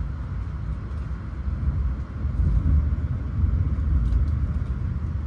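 Low rumble of a Shinkansen bullet train heard from inside the passenger car as the train runs in alongside a station platform. The rumble grows louder through the middle and eases near the end.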